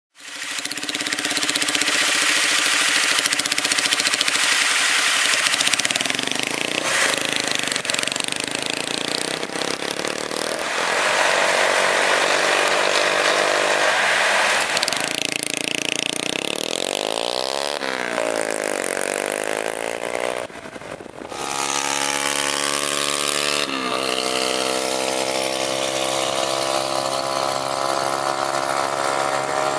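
Small high-revving motorcycle engine, a Honda CBR125 single, running hard. Its pitch repeatedly rises and falls with revs and gear changes, over a steady hiss, with a brief dip about twenty seconds in.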